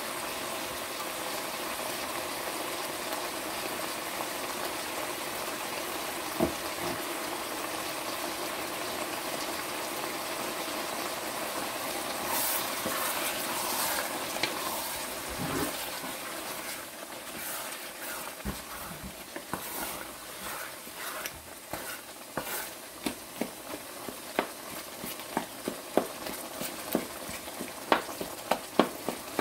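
Cabbage, peas and tomato sizzling in a hot pan with a steady hiss. From about halfway, a wooden spoon stirs them, giving many sharp, irregular knocks and scrapes against the pan.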